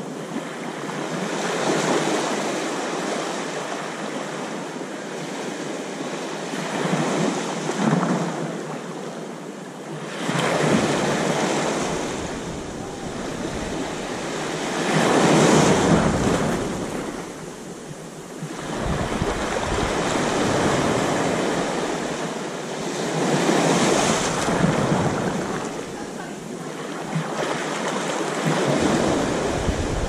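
Small ocean waves breaking and washing up a sandy beach, the wash surging and ebbing every few seconds.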